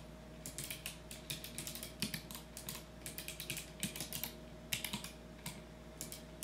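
Keyboard with Kailh Navy switches being typed on: irregular runs of sharp key clicks with short pauses between them.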